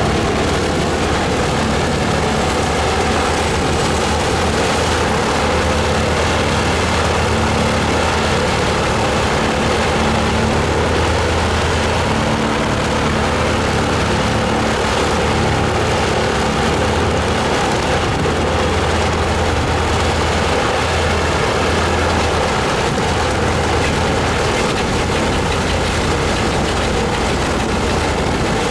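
The Junkers Ju 52/3m's three Pratt & Whitney Wasp nine-cylinder radial engines idling steadily, with a deep, even rumble.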